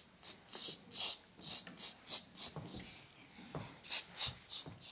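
Children whispering: a run of short, hissy bursts, about three a second, with hardly any voice in them.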